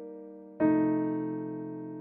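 Piano playing a slow accompaniment alone, with no singer: a held chord dies away, then a new chord is struck about half a second in and left to ring, slowly fading.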